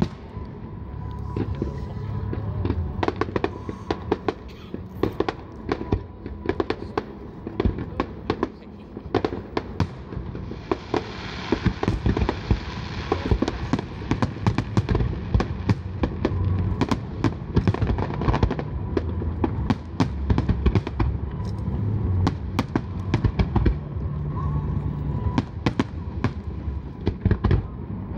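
Fireworks display: a steady run of sharp bangs from bursting shells, with a dense crackling hiss for a few seconds in the middle, over a low background rumble.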